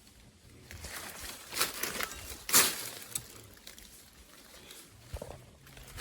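Irregular footsteps scuffing over rough ground while climbing a slope, the loudest step about two and a half seconds in.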